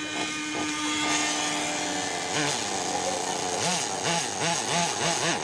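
Small glow-fuel engine of a radio-controlled car being started and running, a loud, high-pitched buzz. The pitch steps down about two and a half seconds in, then rises and falls in several quick swells near the end before cutting off suddenly.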